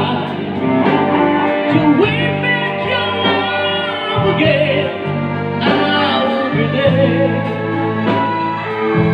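A live band plays a song through PA speakers: a singer's voice on the microphone over electric guitar and sustained backing notes.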